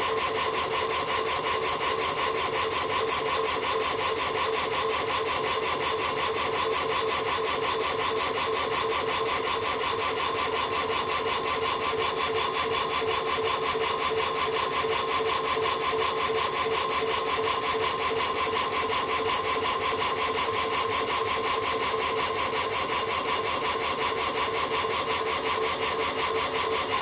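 Two electric motors running as spinning inertial loads under their drives, making a loud, steady whine at several fixed pitches over a fast pulsing noise that cuts off suddenly at the end. The loud noise is from the bigger motor, which the owner thinks has seen better days.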